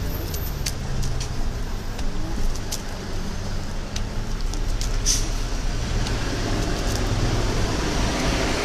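Street traffic noise: a steady low engine rumble from road vehicles, with a few light clicks and a short hiss about five seconds in.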